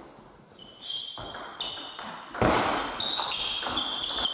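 Table tennis rally: the ball clicking off bats and table, with shoes squeaking on the sports hall floor as the players move, getting louder about halfway through.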